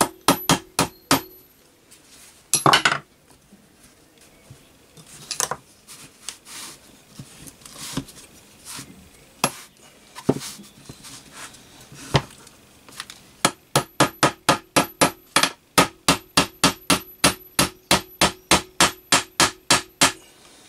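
Small hammer tapping a steel roll pin into the bronze pump housing of a Setra pump-up air rifle. A quick cluster of taps at the start and a few scattered single taps, then a long even run of about three to four taps a second near the end, each with a faint metallic ring.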